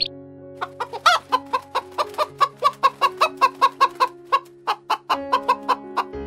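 A bird giving rapid, repeated short calls, about three a second, over background music with held notes.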